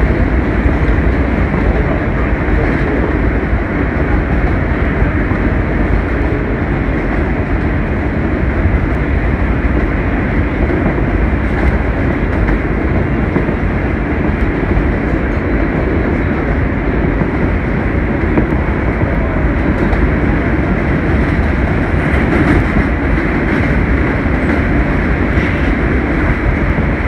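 A train running steadily, heard from inside the car: an even rolling noise that doesn't change or break.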